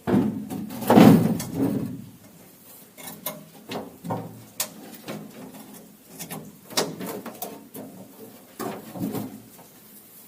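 Irregular clicks, knocks and scrapes of hand tools working on metal door-lock parts, loudest in the first two seconds.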